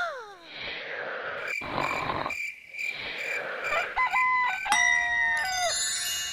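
Added sound effects for daybreak: a soft chirping that repeats about twice a second, then a rooster crowing about four seconds in, its call falling away at the end, followed by a rising sparkly twinkle near the end.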